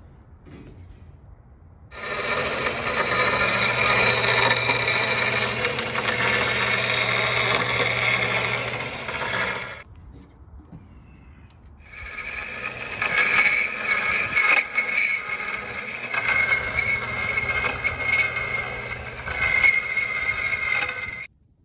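A power tool working metal in two long runs of about eight and nine seconds, with a short pause between, steady and loud throughout.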